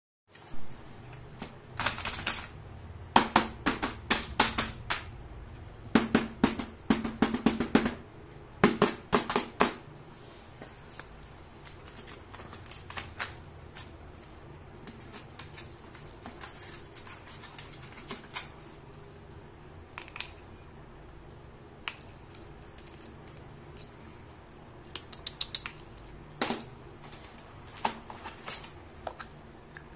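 Hard plastic toy doctor-kit pieces clicking and clacking against each other and against the moulded plastic carry case as they are handled. Quick runs of clacks fill the first ten seconds, then scattered single taps follow.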